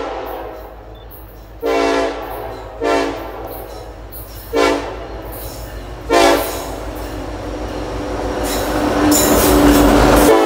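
Union Pacific SD70AH diesel locomotive sounding its Nathan K5LLA five-chime air horn in a series of blasts: a long one about one and a half seconds in, then three short ones. After that the engine and wheels grow steadily louder as the locomotive passes close by, loudest near the end.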